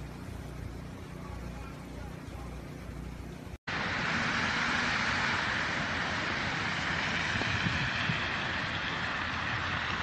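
A low steady hum for the first few seconds. Then, after an abrupt cut, the louder steady rushing noise of a snowy street at night, with car traffic on the slushy road.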